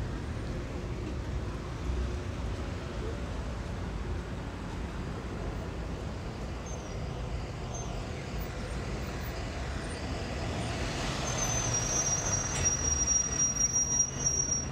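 City street traffic: cars and a box truck running past, a steady low rumble that grows louder about ten seconds in. Near the end, a high steady squeal is held for about three seconds.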